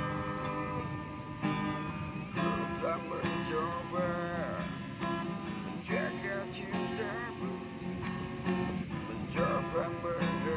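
Acoustic guitar strummed in a steady rhythm, accompanying a man singing.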